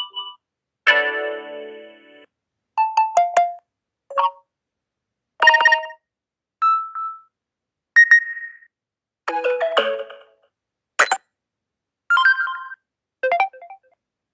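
Samsung Galaxy A32 4G notification tones played one after another: about ten short electronic chimes and jingles, each a second or less long, with silence between them.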